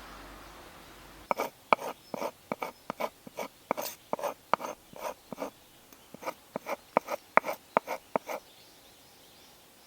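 A quick run of about twenty sharp clicks or snaps, roughly three a second, lasting about seven seconds, after a faint rustle.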